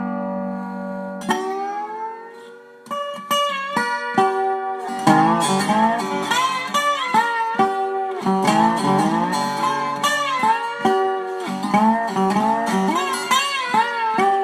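Guitar music: a held chord fades away, then single picked notes with sliding pitch bends, building into busier playing about five seconds in.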